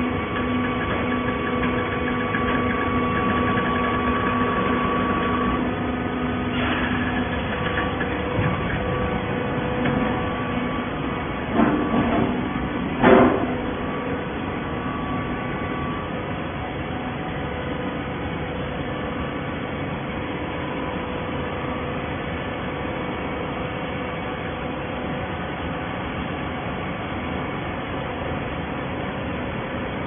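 Horizontal hydraulic baler plant running: a steady machine drone with a whine, the whine dropping away about five seconds in, and a few sharp metal knocks around the middle.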